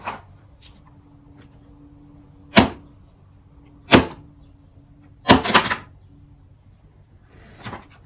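A few sharp clacks and knocks of tools and a small outboard fuel pump handled on a workbench while a stiff rubber fuel line is worked off it with a knife. There are single knocks, then a quick double, then a fainter one near the end, over a faint steady hum.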